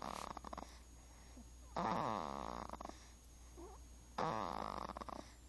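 Snoring in a slow, steady rhythm: a snore trails off at the start, then two more snores follow about two and a half seconds apart, each a rasping, buzzing breath lasting about a second.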